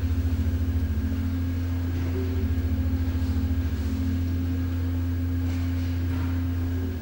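Pipe organ holding a dense, low sustained chord with a throbbing pulse in the bass, released just before the end.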